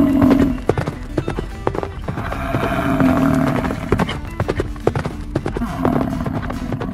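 Sound effects of hooves clip-clopping at a quick pace, over background music. Short animal calls come at the start, about three seconds in and near the end.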